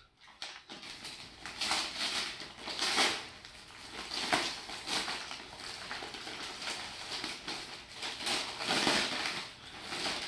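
Christmas wrapping paper being torn and crinkled by hand as a present is unwrapped: a series of rips and rustles, the loudest about three seconds in and again near nine seconds.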